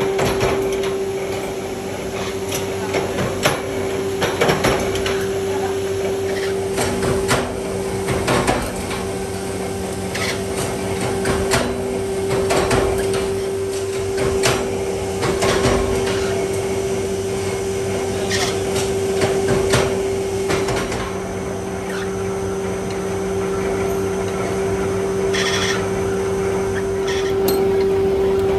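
Workshop machinery running with a steady hum, under irregular metal clanks and knocks as steel carriage bolts are handled and fed into a press die. The knocks come thick and fast for the first twenty seconds or so, then thin out.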